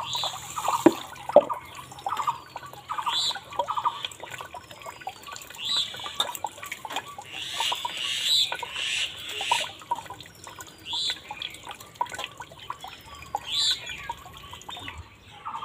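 Rice being washed by hand in a steel bowl of water: splashing, swishing and dripping in many short bursts, with water poured in from a tin can at the start.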